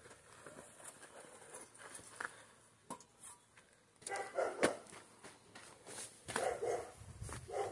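Faint animal calls in two short bouts, about four seconds in and again near the end, among scattered light clicks.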